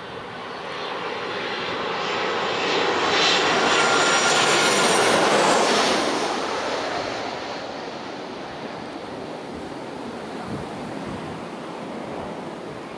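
Jet airliner passing low overhead on final approach to land: the engine whine and rush swell to a loud peak about four to six seconds in, then fade to a steady, quieter rush as the plane moves away.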